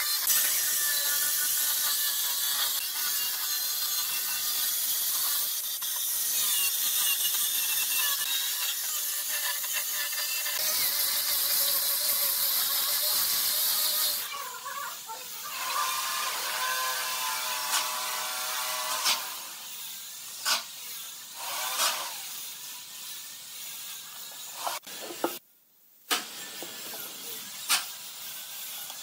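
Angle grinder with a sanding disc sanding the curved edge of a pine board, a steady gritty whir. About halfway through it drops to a quieter whine, followed by a few sharp clicks and taps.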